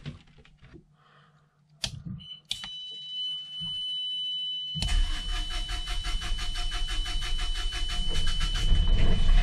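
A boat's marine generator being started from its electrical panel. Two switch clicks, then a steady high beep, then about halfway through the generator cranks and starts running with a rhythmic sound that grows louder, the beep still going. It is being run briefly to draw marine antifreeze through its raw-water cooling system for winterizing.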